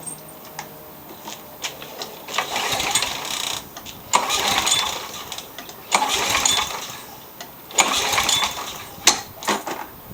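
A 1999 walk-behind lawn mower being pull-started four times in a row, the recoil starter rope whirring out and the engine turning over without catching, followed by a few clicks. The owner suspects a carburetor problem, as it starts only with carb cleaner.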